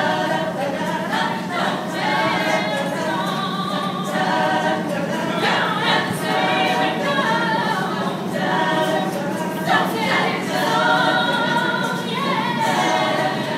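A mixed group of men's and women's voices singing a cappella together in parts, choir-style, with no instruments.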